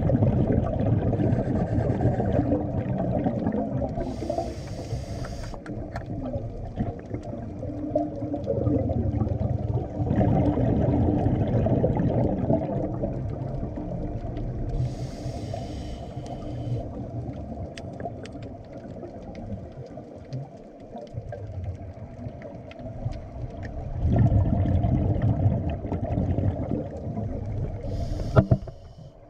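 Scuba regulator breathing heard underwater: short hisses of inhaled air alternate with long rumbling gurgles of exhaled bubbles, in a slow breathing cycle of several seconds.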